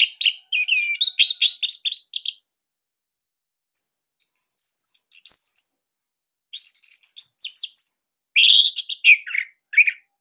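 Orange-headed thrush singing: four phrases of rapid, varied high notes and whistled glides, with short silent gaps between them.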